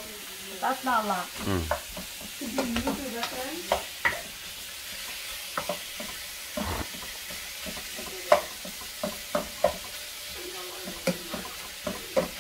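Meat sizzling in a nonstick wok over a gas flame, stirred with a wooden spatula that clicks and scrapes against the pan every so often.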